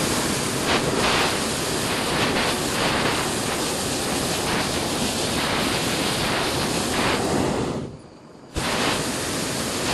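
Hot air balloon's propane burner firing: a loud, steady hiss that stops for just under a second about eight seconds in, then starts again abruptly.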